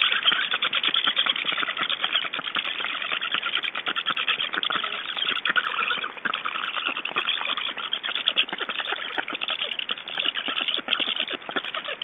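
Black stork nestlings begging for food from an adult, a harsh rasping chatter made of rapid clicks that runs without a break.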